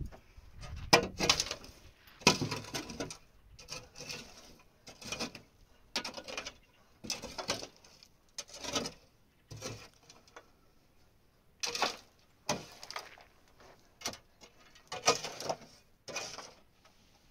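A small hand digging tool scraping and chopping into dry, stony cave soil in repeated strokes, about one a second with a short pause partway through, loosening earth and gravel to be scooped up.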